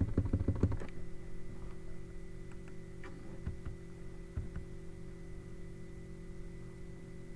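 Computer keyboard keys clicking: a quick run of presses in the first second, then scattered single clicks, over a steady electrical hum.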